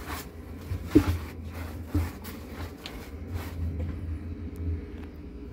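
Wet microfiber towel scrubbing across ceramic pizza-oven floor bricks, a rubbing stroke about once a second with a couple of sharper knocks, dying away after about four seconds over a steady low hum.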